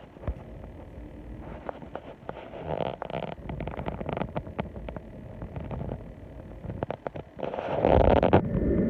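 Handling noise at a close phone microphone: rubbing and rustling of hands and fabric against the flannel shirt, with scattered small clicks, and a louder scraping rub about eight seconds in.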